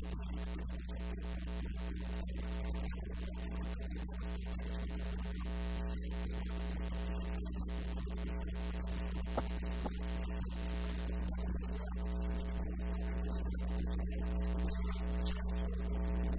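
Steady electrical mains hum with music underneath.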